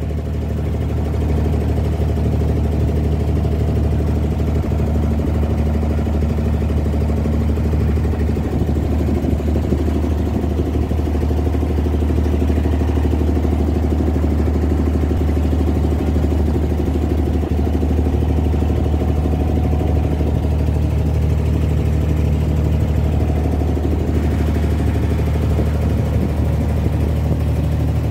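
Inboard diesel engine of a wooden abra water taxi running steadily under way: a constant low drone that does not change in speed.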